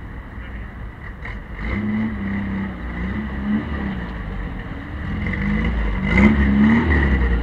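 A classic VW Beetle's air-cooled flat-four engine runs and revs as the car pulls away close by, with other classic car engines idling and creeping forward behind it. A short sharp sound about six seconds in is the loudest moment.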